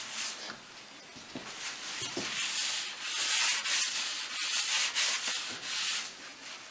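Paper towel rubbing over the cast-iron top of a wood cook stove in a series of wiping strokes, taking off the excess vegetable shortening as the stove top is seasoned.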